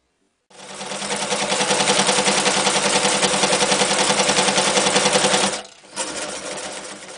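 Janome New Home 552 electric sewing machine stitching through eight layers of sailcloth, a fast steady rhythmic run that starts about half a second in. It stops briefly after about five seconds of sewing, then runs again more quietly near the end.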